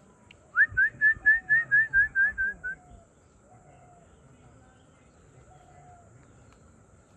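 A rapid series of about ten short, loud whistled notes, roughly four a second, the first rising sharply and the rest level then dipping slightly in pitch near the end.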